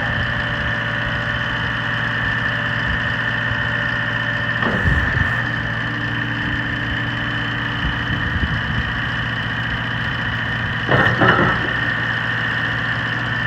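Volvo TC-68 diesel engine of a 2014 Volvo MCT125C skid steer idling steadily. Two brief louder sounds break in, about five seconds in and, louder, about eleven seconds in.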